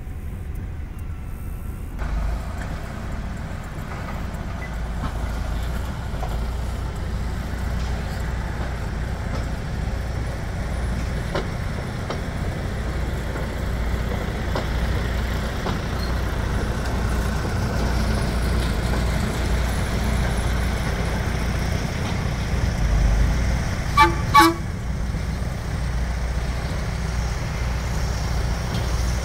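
Steady low engine rumble, broken about 24 seconds in by two short horn toots in quick succession, the loudest sound here.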